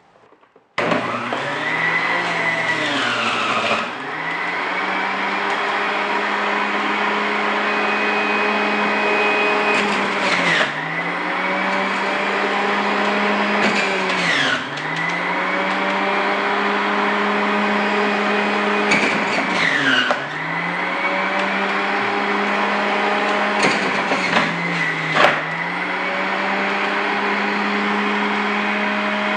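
Electric juicer motor starting up and running as melon pieces are fed through it, a steady high hum whose pitch dips briefly about five times as the motor takes each load of fruit, then recovers.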